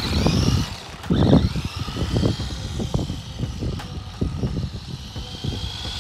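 The electric motor of a 1:18-scale RC truck whines, its pitch rising and falling as it speeds up and slows. Its tyres crackle over gritty asphalt, loudest about a second in.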